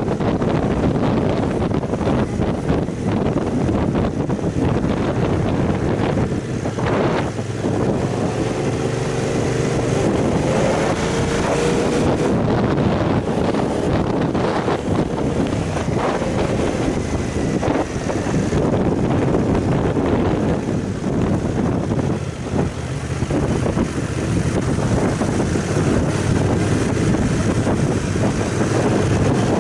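Aprilia Caponord 1200 motorcycle ridden at low road speed, its 90° V-twin engine running under steady wind noise buffeting the camera microphone; an engine note rises briefly about ten seconds in.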